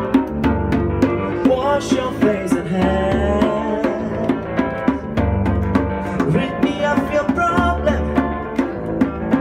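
Live pop song from a keyboard-and-percussion duo: a man sings a melody over keyboard chords and bass notes, with a hand drum keeping a steady beat.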